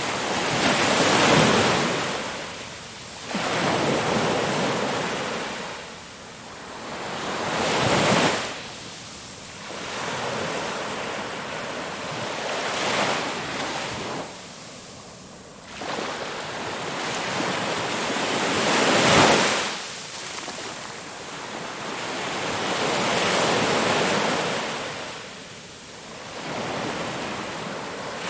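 Ocean waves breaking on a shore, one surge of surf after another, each swelling and then washing back.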